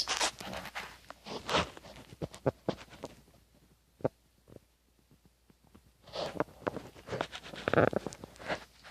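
Domestic cat snoring in her sleep: two rattling, rasping breaths, one at the start and one about six seconds in, with near quiet between.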